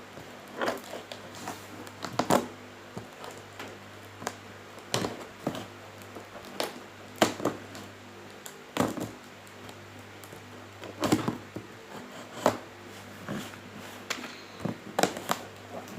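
Scissors and hands working at a cardboard shipping box: irregular sharp snips, clicks and crackles of tape and cardboard, over a steady low hum.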